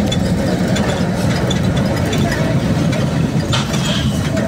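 A vehicle engine running steadily as it drives along, a continuous low rumble with traffic around it.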